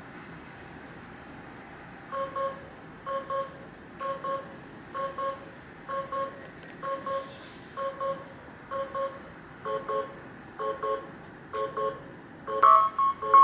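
Adesso OKITE! ES-01 digital alarm clock sounding its alarm: double beeps about once a second, then a much louder, faster alarm near the end.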